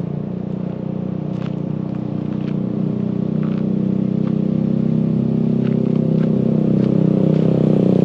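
A motorcycle engine running steadily and getting gradually louder as it approaches.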